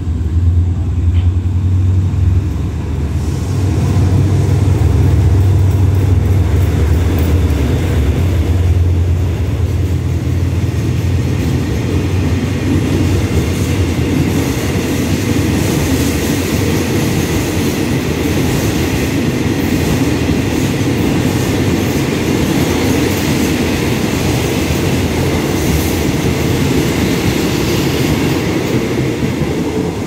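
A freight train running through a station. For the first ten seconds or so the Hitachi diesel-electric locomotive's engine drones low and loud as it nears and passes. After that the tank wagons roll steadily by, their wheels rattling on the rails.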